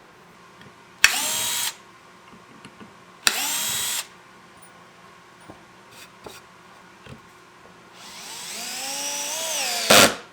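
Handheld power drill run in short trigger pulls: two brief bursts of motor whine, then a longer run whose pitch rises for about two seconds, ending in a loud burst just before it cuts off.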